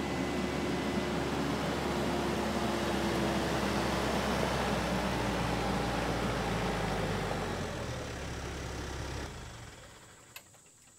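Diesel engine of a TYM T574 tractor running steadily as the tractor pulls up, then shut off about nine seconds in, the sound dying away. A single sharp click follows near the end.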